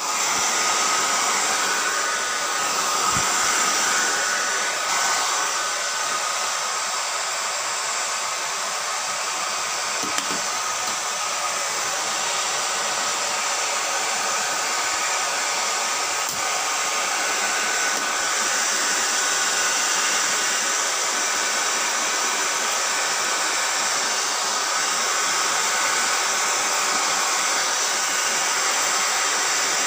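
Philips hair dryer running steadily: a continuous rush of air with a thin, steady whine above it.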